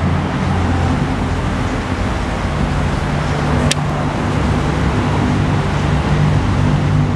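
Steady low motor hum and rumble, with one sharp click about three and a half seconds in.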